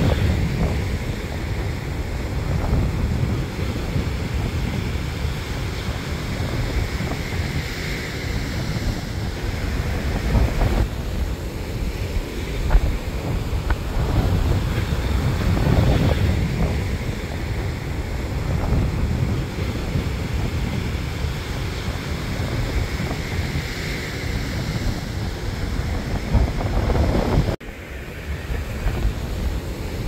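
Surf breaking and washing up on a sandy beach, a steady wash that swells and ebbs every several seconds, with wind rumbling on the microphone. The sound briefly cuts out near the end.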